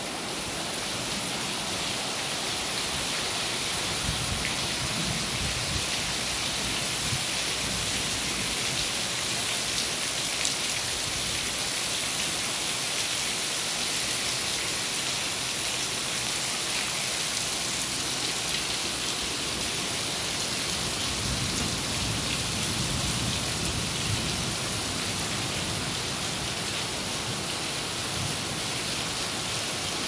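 Steady rain falling, an even hiss with no let-up.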